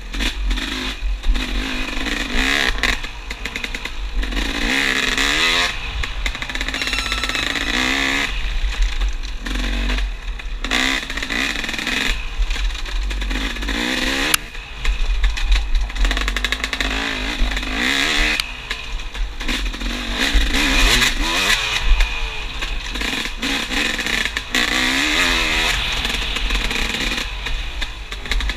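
Enduro dirt bike engine close up, heard from the rider's helmet: revving up and dropping back over and over as the rider throttles and shifts along the trail.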